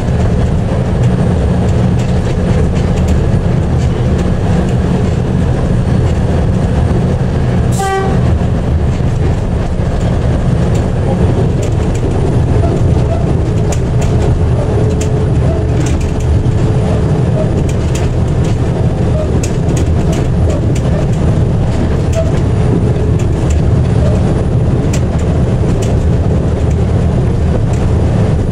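DSA-class diesel locomotive running steadily under way as heard from the cab, a loud low engine drone with the wheels clicking irregularly over the rails. A single sharp knock about 8 seconds in.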